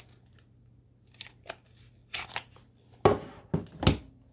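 Plastic clicks as the battery pack is unlatched and pulled off a cordless hedge trimmer, then a few sharp knocks about three seconds in as the tool is set down on a table.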